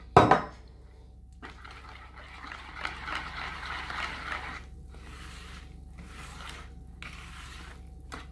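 A sharp knock, then a wire whisk stirring ground nuts into a runny egg, milk and oil batter in a bowl: a continuous swishing scrape with brief pauses.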